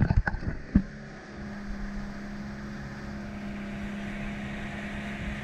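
Boat engine running at a steady drone while the boat is under way, with a few sharp knocks in the first second.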